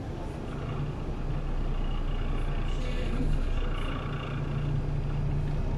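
Running noise of a city bus heard from inside while it drives along a wet street: a steady low hum with tyre noise from the wet road.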